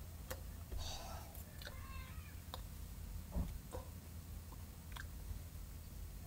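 Quiet car-cabin sound: a low steady rumble with scattered soft clicks and taps, a brief faint breathy vocal sound about a second in, and a dull thump a little past the middle.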